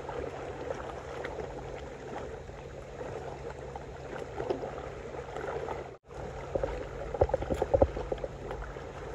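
Small waves lapping and washing against shore rocks in a steady, noisy wash. The sound cuts out for a moment about six seconds in, then several low bumps follow.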